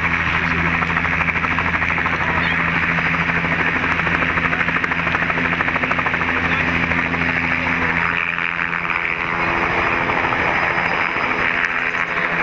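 Helicopter running at flight rotor speed on the ground, a steady rapid rotor chop over the engine, then lifting off. The low engine and rotor tones change about eight seconds in as it rises and moves away.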